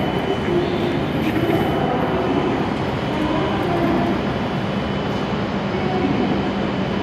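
Steady rumble and hum of an E7-series Shinkansen train, with a low hum joining in about five seconds in.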